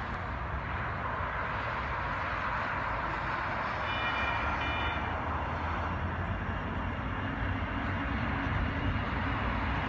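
Sacramento light rail train approaching slowly at a distance, a steady low rumble under an even background noise. A brief high double tone sounds about four seconds in.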